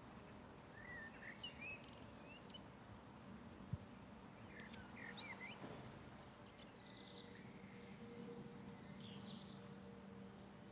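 Faint songbirds chirping in scattered short calls over a steady low background hum, with a single sharp click a little under four seconds in.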